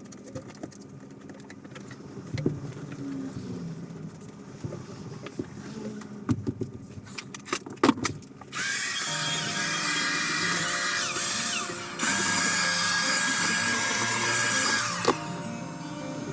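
A power tool runs loudly in two bursts of about three seconds each, starting a little past halfway and winding down between them, over background music.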